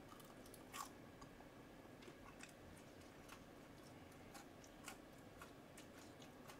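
Faint chewing of tteokbokki rice cakes: soft, scattered wet mouth clicks over low room hiss, one a little louder about a second in.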